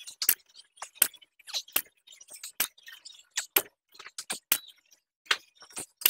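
Loaded barbell clinking and rattling through deadlift reps: the plates shift on the bar sleeves and the bar knocks, giving sharp metallic clinks about two a second at an uneven spacing.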